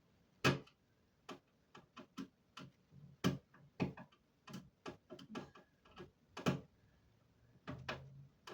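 Irregular sharp clicks and light knocks, roughly one to two a second, from hands working a window air conditioner unit and its fittings into place.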